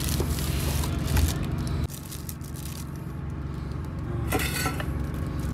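Stainless steel dishes clinking and scraping as rice is served from a steel container onto a steel plate, with sharp clinks about a second in and a short run of them past four seconds. A low steady rumble from the moving train lies underneath and drops away suddenly about two seconds in.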